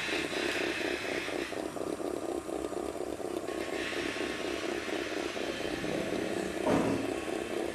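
Small electric motor and gearing of an HO-scale model carousel whirring as it turns, with a fast, even clatter. About seven seconds in it briefly gets louder.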